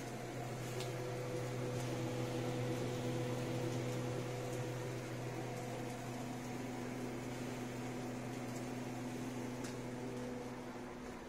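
Chimney exhaust fan's electric motor running steadily: an even hum with a low tone and two higher steady tones over a rushing air noise, with a few faint ticks.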